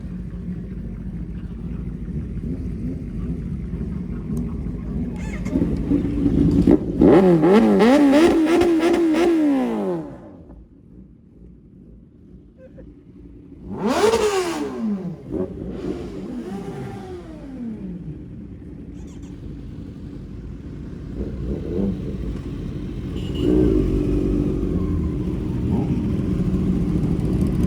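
Sport motorcycle engines running, with a loud rev that rises and falls about seven seconds in and another sharp rev about fourteen seconds in whose pitch then falls away. The engine sound drops low for a few seconds between them and grows louder again near the end.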